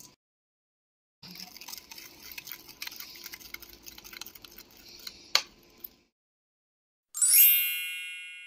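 A metal spoon stirring a soy-vinegar dipping sauce in a ceramic bowl, clinking lightly against the sides, with one sharper tap about five seconds in. After a short pause a bright chime rings out loudly and slowly fades.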